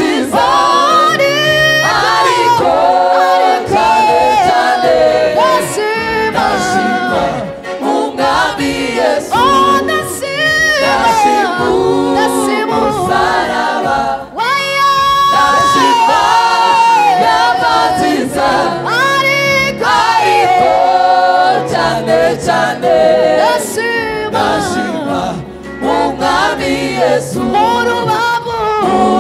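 A choir singing a gospel song, several voices together.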